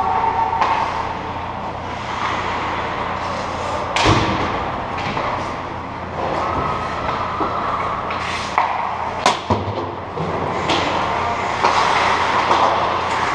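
Ice hockey play: skate blades scraping and carving on the ice, with sharp cracks of sticks and puck, the loudest about four seconds and about nine seconds in.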